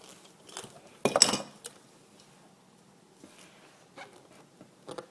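Scattered light clicks and knocks of small plastic wind-up toys being handled, the loudest about a second in.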